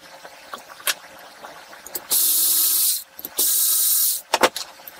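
Cordless drill/driver spinning a fastener out in two bursts of under a second each, then a couple of sharp clicks about a second later, the driver backing out mounting bolts during engine disassembly.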